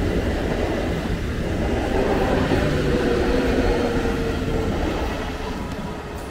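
Eastern Railway electric multiple-unit local train running past, its wheels rumbling on the rails, with a steady whine in the middle. The sound fades over the last second or so as the rear coaches move away.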